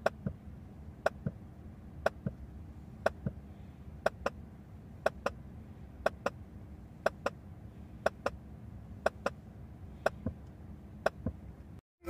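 Sharp test clicks from the car's speakers in pairs, the second a fraction of a second after the first, about one pair a second: the Helix M Four DSP's automatic time-delay measurement pulsing the front speakers for its measurement microphone.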